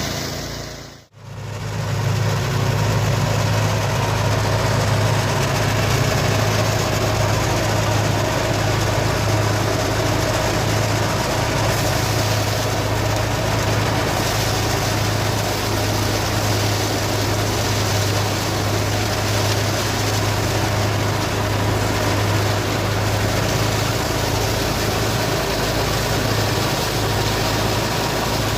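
Mini rice threshing machine running steadily, its engine giving a strong low hum under a noisy mechanical din. The sound drops out sharply for a moment about a second in, then runs on unchanged.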